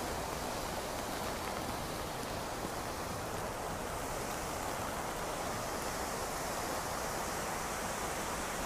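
Steady rush of falling water from the memorial pool's cascading waterfall, mixed with pouring rain and gusting wind.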